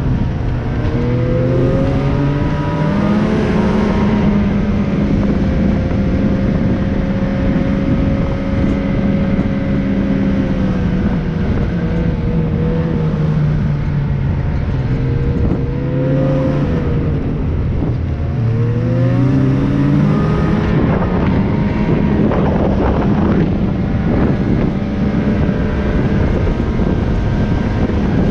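Engine of a moving vehicle running over steady wind and travel noise, its pitch rising and falling several times as it speeds up and slows.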